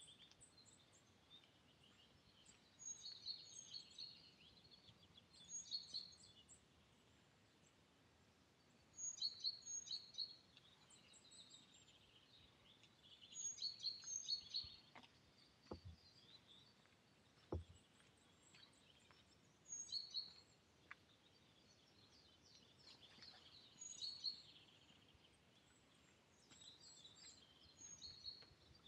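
Songbirds singing in short, high, repeated phrases every few seconds over a faint, even woodland background.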